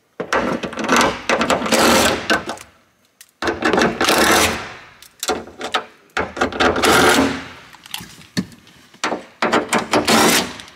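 Cordless power driver with a socket extension spinning out the 10 mm bolts that hold the sunroof assembly to the roof, in four runs of one to two and a half seconds with short pauses between.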